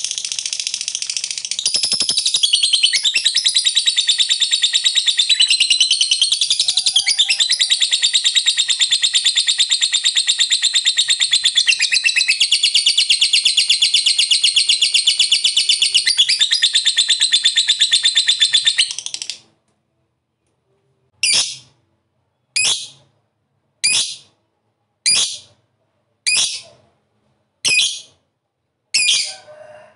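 Lovebird singing its long 'ngekek' trill: a rapid high chattering run that goes on unbroken for about nineteen seconds, then stops. After a short pause it gives short sharp chirps, each a little more than a second apart, seven or eight in a row.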